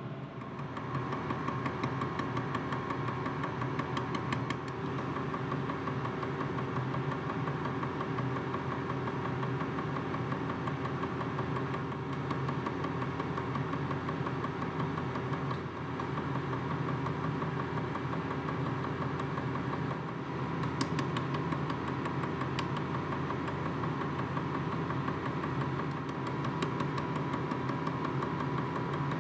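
A small electric machine motor running steadily, with a high whine that cuts out briefly about twenty seconds in and then returns.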